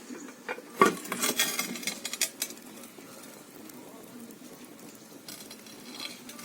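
Metal clinking and clanking at a wood-burning stove, a cluster of sharp strokes from about a second in that lasts under two seconds. A steady hiss runs underneath.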